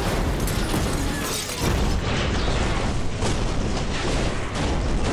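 Car crash: a garbage truck rams a sedan and flips it onto its roof, a loud continuous crunching of metal over a deep rumble, broken by several sharp heavy impacts.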